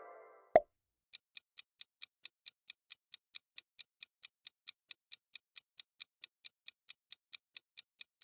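A musical tone fades out, then a single sharp pop about half a second in. After it a countdown timer sound effect ticks steadily, about three ticks a second.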